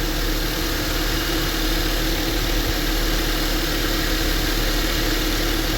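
2010 Honda Accord's engine idling steadily, with the alternator charging normally.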